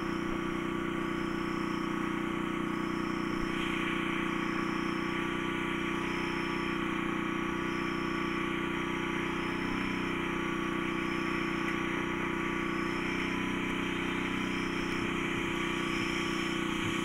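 A steady engine-like drone running evenly, with a faint short high chirp repeating about every second and a quarter.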